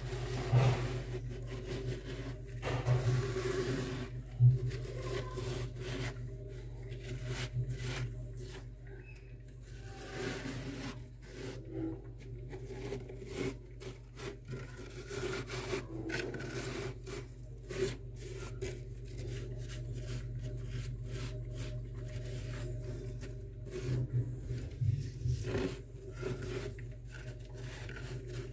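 Bare hand scraping and digging through thick, soft freezer frost: irregular crunching and rasping with many small crackles, over a steady low hum.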